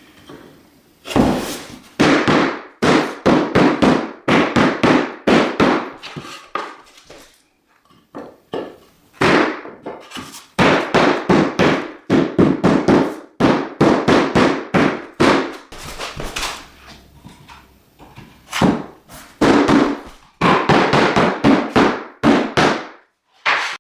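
Rapid, loud knocking as engineered wood floor boards are tapped into place in glue, about three to four knocks a second, in three runs broken by short pauses.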